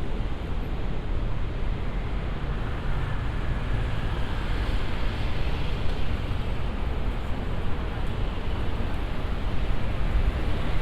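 Steady city street ambience: a continuous rumble of road traffic with no single event standing out.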